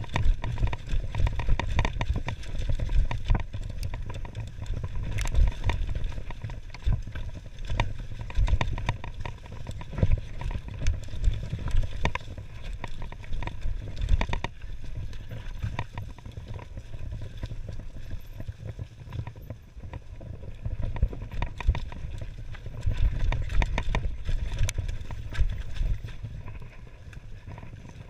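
Mountain bike clattering and rattling over a rough dirt trail at speed, with frequent sharp knocks as it hits roots and rocks, and wind buffeting the microphone underneath.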